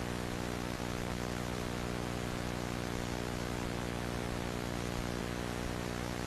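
Steady static hiss with a low electrical hum and its overtones underneath, unchanging throughout.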